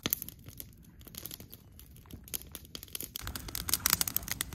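Campfire of small branches crackling and popping, the pops coming much thicker from about three seconds in.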